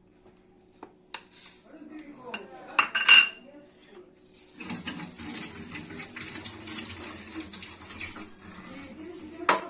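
Metal utensils and cookware clinking in a kitchen, with one loud ringing clink about three seconds in. From about five seconds on comes a steady run of scraping and rattling against a pot.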